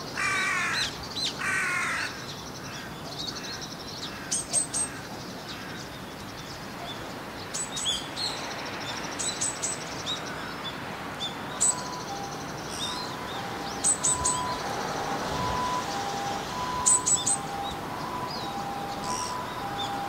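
A crow caws twice at the start, two harsh calls, and then small birds chirp repeatedly in short high notes. From about twelve seconds in, a steady two-note tone alternates in the background.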